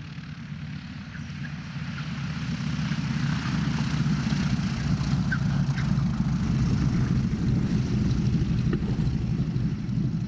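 The nine-cylinder radial engine and propeller of a North American T-6 running as the aircraft rolls along the runway and passes close by. The rumble grows louder over the first few seconds as it comes near, then stays loud and steady.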